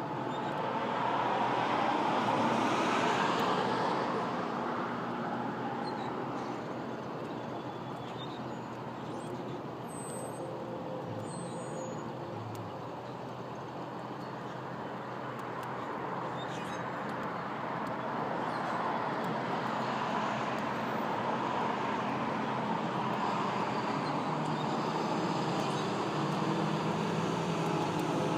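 Road traffic going by: a steady hiss of passing vehicles that swells about two seconds in, eases off in the middle and builds again in the second half.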